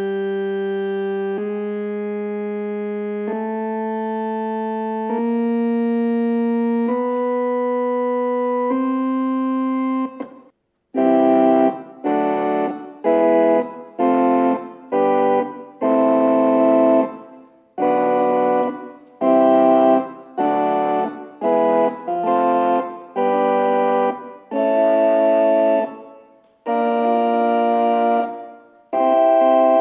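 Galanti (GEM) Caravan R6 portable electronic organ being played: single held notes stepping upward in a slow rising scale, then, after a brief break about ten seconds in, a run of short detached chords.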